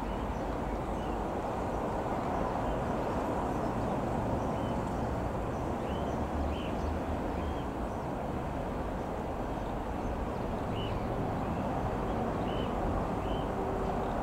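Steady, distant rumble of a Boeing 737-800's two CFM56 jet engines passing high overhead. A small bird chirps a few times, in two short spells.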